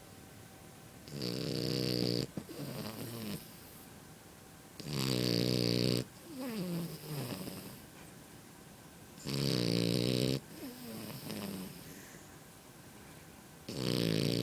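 French bulldog puppy snoring in a steady rhythm: four loud snores, about one every four seconds, each followed by a softer breath that falls in pitch.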